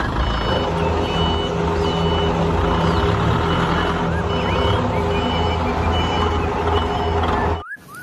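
Forklift engine running steadily under way while its warning beeper sounds a short high beep over and over at an even pace; both stop abruptly near the end.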